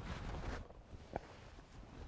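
Faint footsteps on rocky ground with the rustle of a fabric backpack being shouldered and carried. A short high chirp sounds about a second in.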